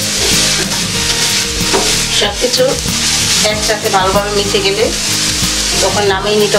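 Chopped mustard greens sizzling in hot oil in a frying pan while a spatula stirs and tosses them, scraping across the pan.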